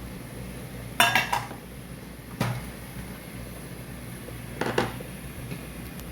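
Kitchen clatter of a cooking pot and utensils: a quick run of clinks about a second in, one knock a moment later, and another short clatter near the end.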